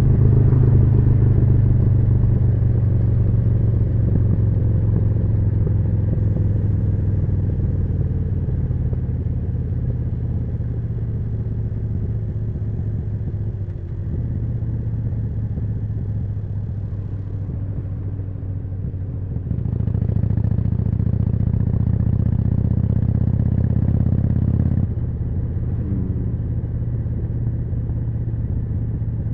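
Harley-Davidson Forty-Eight's 1200 cc V-twin running through a Jekill & Hyde exhaust on the move. The engine note eases off over the first dozen seconds, comes back louder about two-thirds of the way through for some five seconds, then drops back suddenly.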